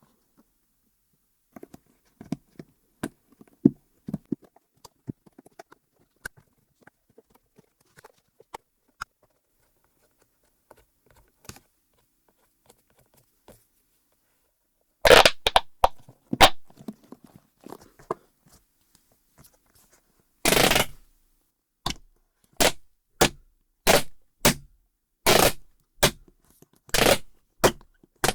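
Silicone push-pop fidget toy with suction-cup poppers being handled: soft scattered clicks and pops for the first half, then loud sharp pops. Near the end the pops come in a quick regular run, more than one a second.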